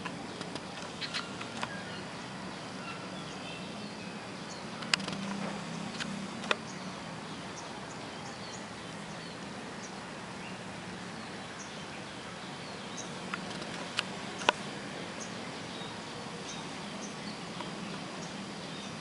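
Pebbles clicking and knocking, a few sharp single clicks at irregular intervals with a pair of louder ones near the middle and another pair near the end, over a steady low background hum.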